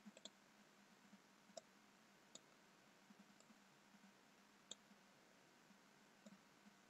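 Faint computer mouse button clicks, a handful at irregular intervals, over near-silent room tone with a faint steady hum.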